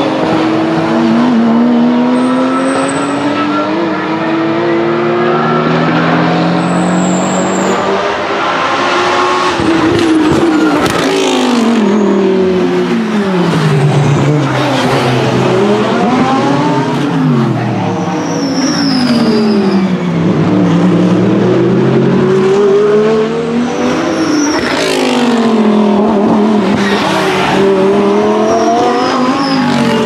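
Race cars passing one after another on a circuit, each engine climbing in pitch as it accelerates through the gears and then dropping sharply in pitch as it goes by.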